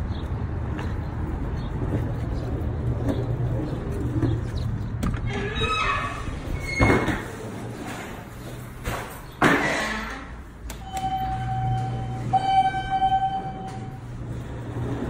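Hydraulic glass elevator at a rail station: two knocks from its sliding doors about halfway through, then a steady electronic tone sounding twice, about a second each. A steady low hum runs under the first half.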